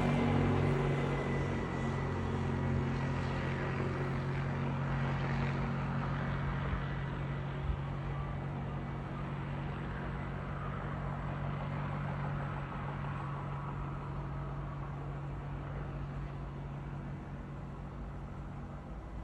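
An engine running steadily with a low hum, slowly growing fainter, with one short knock about eight seconds in.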